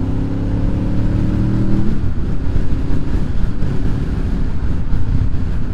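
Honda VFR motorcycle's V4 engine running at steady speed under way, its note rising gently. About two seconds in, the engine tone drops away under a steady rush of wind noise on the microphone, and the engine note comes back near the end.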